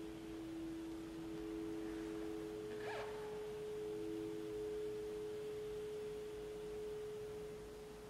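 Saxophone with live electronics: two soft, pure-sounding held notes overlap, the upper one steady and the lower one breaking off briefly and then fading out near the end. A short faint squeak or key noise is heard about three seconds in.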